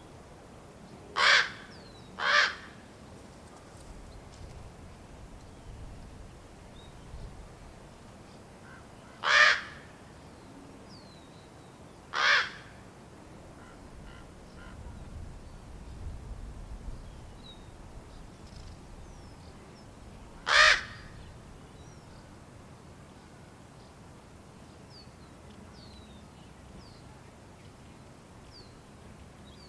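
Raven fledglings giving harsh begging calls while waiting to be fed, five short loud calls: two close together near the start, two more around the middle and one later.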